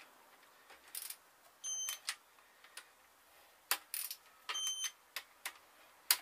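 Click-type torque wrench releasing twice, about three seconds apart, with a short ringing metallic click each time as it is pulled on a connecting-rod bolt that is already at its set 35 lb ft: the bolts are being double-checked. Between the releases come sharp clacks of the wrench and socket being moved from bolt to bolt, the loudest near the end.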